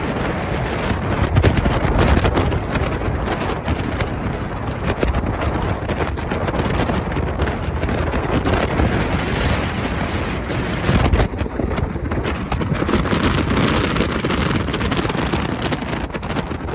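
Wind buffeting the microphone aboard a boat under way: a loud, unbroken rush with deep rumble and gusts, briefly easing about eleven seconds in.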